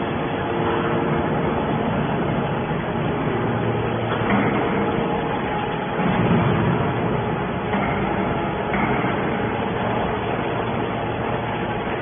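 Hydraulic scrap-metal baler running: a steady mechanical noise from its hydraulic power unit and moving rams, with brief louder surges about four and six seconds in.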